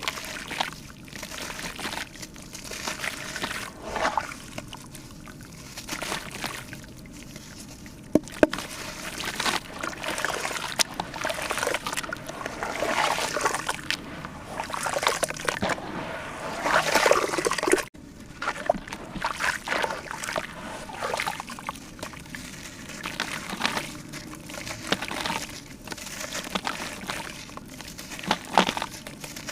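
Liquid pouring and sloshing in irregular spells, busiest in the middle, then dropping away abruptly.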